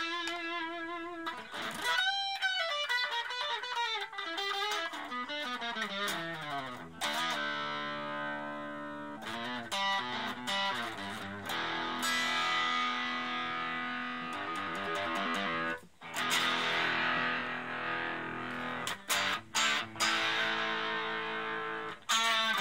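Electric guitar played through a Raizin "60s Vintage Tweed" effects pedal, with a lightly distorted tone. It starts with single-note lines that bend and waver in pitch, moves into held chords, and ends with short, choppy chord stabs.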